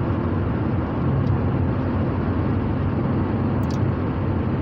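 Steady low rumble and hiss of a car heard from inside its cabin.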